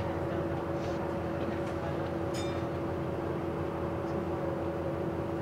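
Bus engine and drivetrain drone heard inside the passenger cabin: a steady low rumble with a constant whine, and a few faint rattles.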